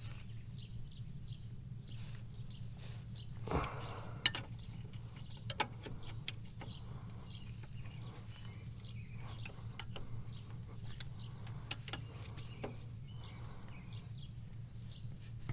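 Small birds chirping over and over, with a few sharp clicks and taps, the loudest pair about five seconds in, and a brief rustle about three and a half seconds in, over a steady low hum.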